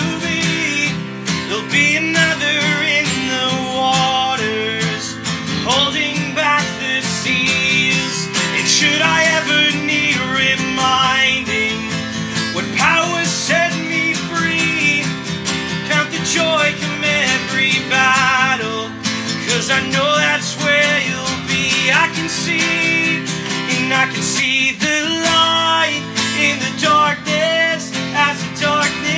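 Acoustic guitar strummed steadily while a man sings a worship song over it.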